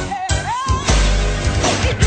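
Pop music playing, its lead melody sliding up and down in pitch in the first second, over a heavy low beat.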